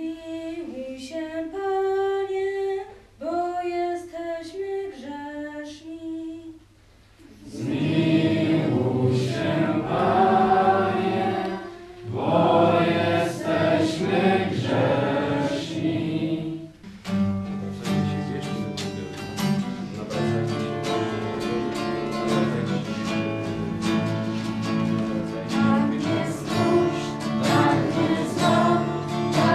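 Group singing of a church song with strummed acoustic guitar. A single voice sings alone at first; about seven seconds in, more voices and the guitar join, and the strumming grows fuller near the middle.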